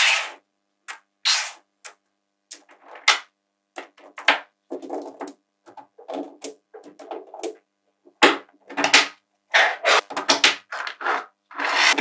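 Small neodymium magnetic balls clicking and clattering as strands of them are snapped together and laid onto a stacked wall of balls, in a series of short, irregular rattles.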